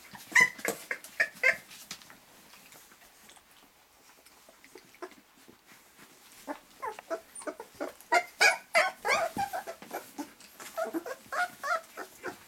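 Two-week-old golden retriever puppies crying in short, high-pitched squeals and whimpers: a few cries at the start, a quieter stretch, then a quick run of cries through the second half.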